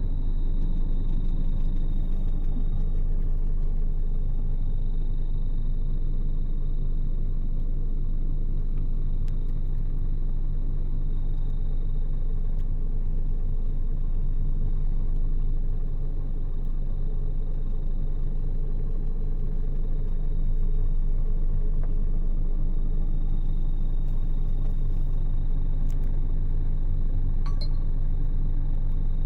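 Scania K400 coach's six-cylinder diesel engine running steadily: an even low rumble with a thin, faint high whine above it.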